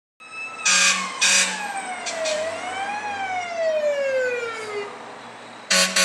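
Fire truck siren wailing: its pitch falls, rises briefly about three seconds in, then falls again. Three short, loud horn blasts come through it, two in the first second and a half and one near the end.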